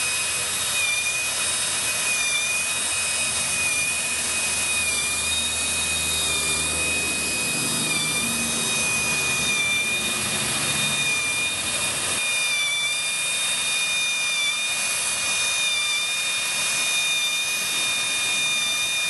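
500 RPM geared pneumatic air drill running steadily, a hiss with a high whine, turning a Jiffy mixer blade to blend the two-part sealant in its can.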